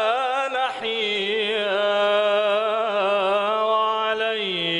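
A young man's solo voice singing an unaccompanied Islamic devotional chant (inshad) in Arabic, with long ornamented held notes. The phrase has a short break about a second in and settles onto a lower held note near the end.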